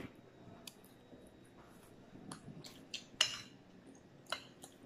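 A metal fork clinking against a ceramic dinner plate a handful of times, short light clicks between quiet stretches, as food is picked up from the plate.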